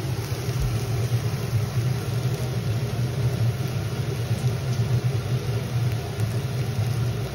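A steady low mechanical hum that holds the same level throughout, with a faint hiss above it.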